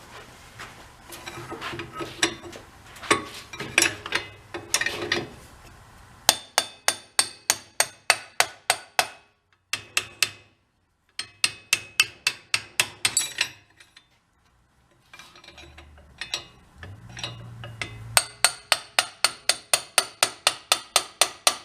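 Hammer tapping in quick even runs, about four blows a second, with short pauses between runs, driving a rust-stuck piston out through the cylinder of a Toro four-stroke snowblower engine. Before the first run come a few seconds of irregular metal clinks and scraping.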